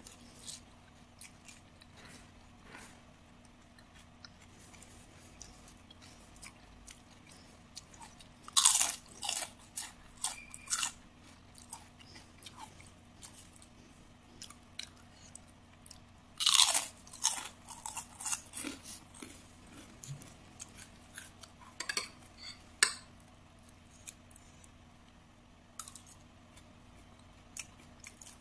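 A person biting and chewing crisp kerupuk crackers, close to the microphone. There are two loud spells of crunching, about a third and about two thirds of the way in, a shorter one later, and quiet chewing clicks in between.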